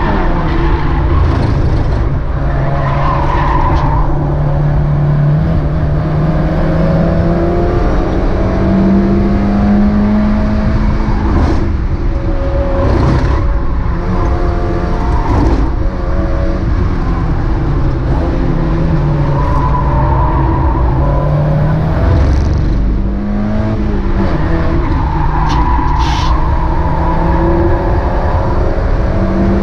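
Mazda MX-5 race car's four-cylinder engine driven hard, its revs climbing for several seconds and then dropping sharply at gear changes, over and over, with tyre and road noise underneath.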